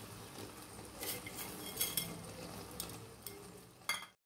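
Metal perforated ladle clinking and scraping against an aluminium cooking pot as a thick tomato and coconut curry is stirred, a few scattered clinks.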